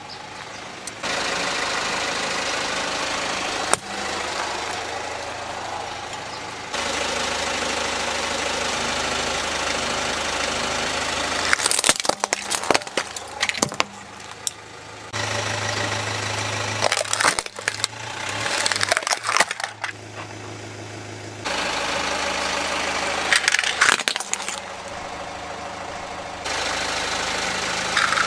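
A car engine idling as the tyre rolls slowly over small plastic toys, with several clusters of sharp cracks and crunches as the plastic breaks. The steady engine noise changes abruptly several times between short takes.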